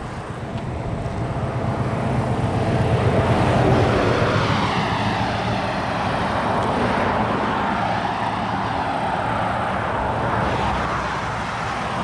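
Highway traffic: a vehicle passes close about four seconds in, its engine and tyre noise swelling to a peak and then dropping in pitch, followed by the steady drone of further traffic, a lorry among it.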